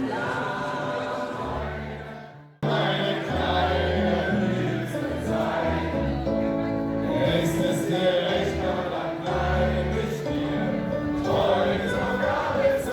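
A group of voices singing a sea shanty together with instrumental accompaniment. The song fades out and cuts off about two and a half seconds in, then singing and accompaniment start again.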